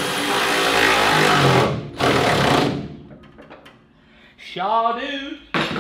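A handheld power tool running: a steady whir that stops about a second and a half in, then a second, shorter burst. A sharp click near the end.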